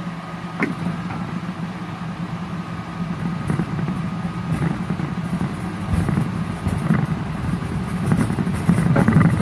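Miniature ride-on train rolling along its track: a steady low hum with a few short clicks and rattles, getting louder in the second half.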